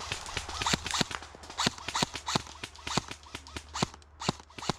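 Airsoft gunfire: a string of sharp snaps at irregular intervals, from guns shooting and BBs smacking into a tree.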